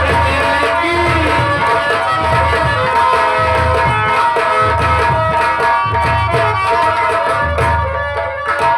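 Instrumental interlude of Birha folk music: hand drums beat out a rhythm under held melody notes, with no voice.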